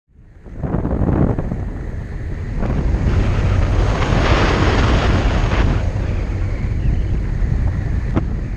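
Wind rushing and buffeting over the microphone of a camera mounted on a glider's carbon-fibre fuselage in flight. It rises quickly from silence in the first second and swells stronger about four to six seconds in.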